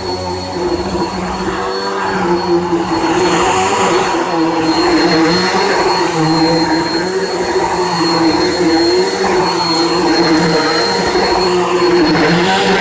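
Bissell PowerForce Helix upright vacuum cleaner running steadily on a rug, its motor whine wavering slightly in pitch as the cleaner is pushed back and forth.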